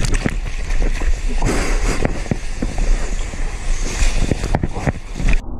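Seawater rushing and splashing around a surfer going for a wave, with heavy wind rumble on the camera microphone; it cuts off abruptly near the end.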